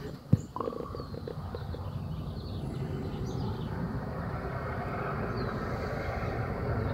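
Outdoor background noise: one sharp click about a third of a second in and a few fainter taps, then a steady low rumble that slowly grows a little louder, with a few faint high bird chirps.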